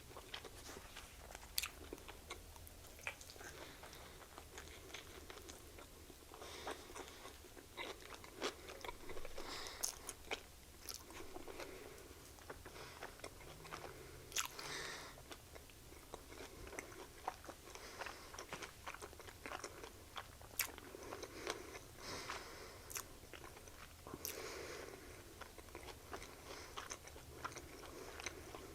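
Close-up chewing of a chicken sandwich: wet mouth smacks and small crunches of pickle and bun.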